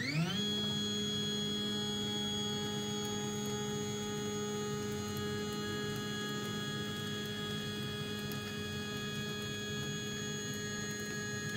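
CNC 3018 Pro's Y-axis stepper motor whining as it jogs the table 100 mm along its lead screw. The pitch rises as it speeds up at the start, holds steady through the long move, and falls as it slows to a stop at the end. This is a steps-per-mm calibration run, and the travel comes out exactly 100 mm.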